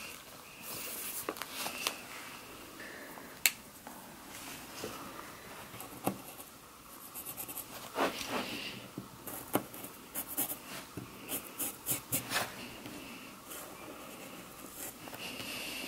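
Permanent marker scratching as it writes on a glossy photo card and then on a t-shirt, mixed with paper and fabric handling rustles and scattered small clicks. There is one sharp click about three and a half seconds in.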